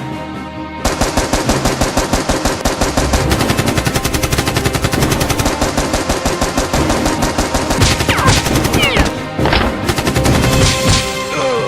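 Rapid automatic gunfire sound effects, starting about a second in and running on in a fast, even stream over background music.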